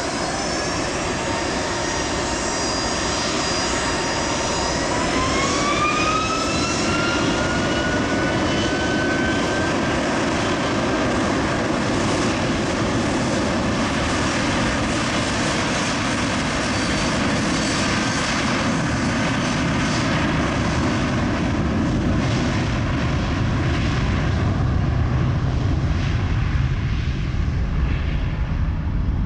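Boeing 757-200 jet airliner's two turbofan engines spooling up for takeoff: a whine climbs in pitch from about four seconds in as thrust comes up, then the engines run steadily at takeoff power, with a deeper low rumble building near the end as the aircraft accelerates away.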